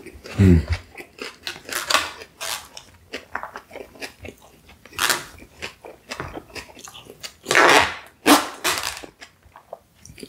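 Close-miked chewing of a mouthful of shawarma chicken and rice, with many small wet mouth clicks. About half a second in there is a short low hum that falls in pitch, and a few louder rustling swells come around the middle and again near the end while a plastic fork and knife work in the container.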